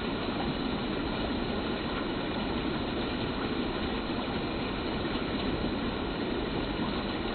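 Icy water rushing over rocks and branches: a steady, even rushing with no breaks.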